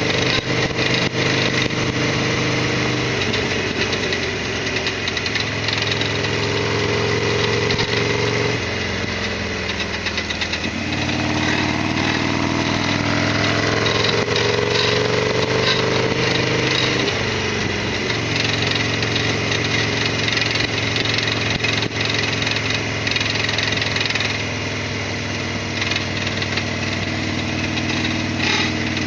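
Harley-Davidson Sportster XL1200R's air-cooled 1200 cc V-twin engine running on the road. The engine note rises and falls with the throttle, climbing twice. It is picked up by a camera microphone on the rider's helmet chin mount.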